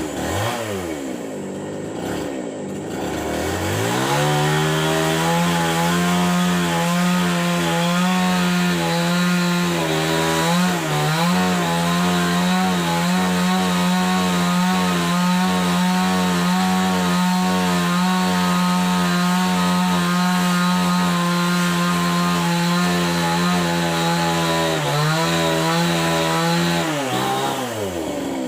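Chainsaw engine revving up from a low speed a few seconds in and held at high speed for over twenty seconds, with a couple of brief dips, then throttling back down near the end.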